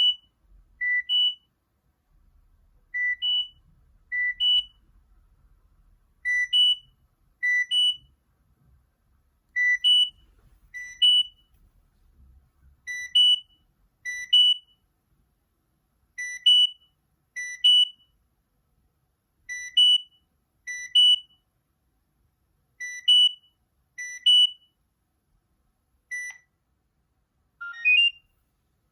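Nokia 6260 ringtone of electronic beeps: short two-note pairs, a lower note then a higher one, repeating in a steady pattern about every three seconds. Near the end a different ringtone begins with a quick run of notes rising in pitch.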